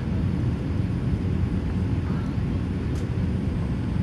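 Steady low rumble of airflow and engines heard inside the cabin of a Boeing 787-8 airliner descending on approach to land, with a faint tick about three seconds in.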